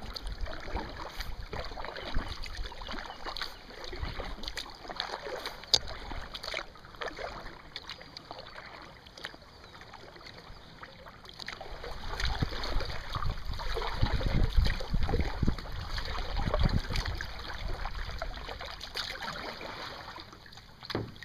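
Sea kayak paddling: the paddle blades dip and splash in calm sea water, with drips and small splashes and water lapping at the hull. The sound grows louder and fuller about halfway through.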